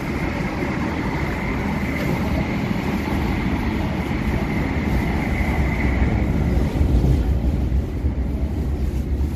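Cabin running noise of an MTR K-Train electric multiple unit under way: a steady low rumble of wheels on rail that grows a little louder in the second half, with a faint high tone that fades out about six seconds in.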